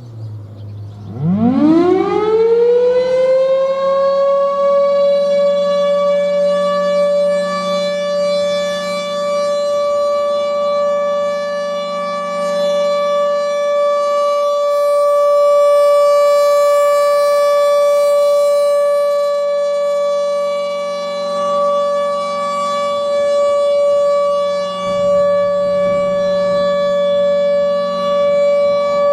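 Federal Signal Thunderbolt 1000 civil defense siren starting its alert signal: it winds up in pitch over the first few seconds, then holds one steady, loud tone.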